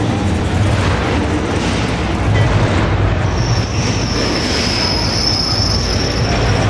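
Loud engine rumble of cars driving by, with a high steady squeal joining in about halfway.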